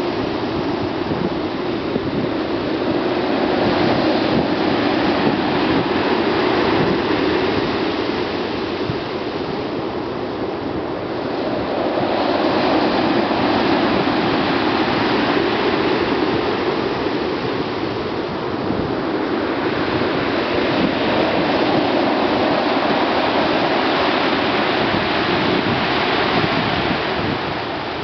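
Rough surf breaking on a pebble beach, waves crashing and washing up the shingle in a continuous rush that grows louder and eases off several times.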